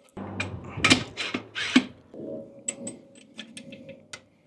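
Steel rear axle of a motorcycle being slid by hand through the swingarm and wheel hub: metal-on-metal clinks and knocks, then a steady scraping rub, with a run of light clicks near the end.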